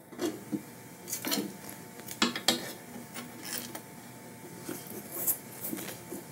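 Scattered light clicks and knocks as thin African blackwood back plates and maple purfling strips are handled and pushed together on a workbench.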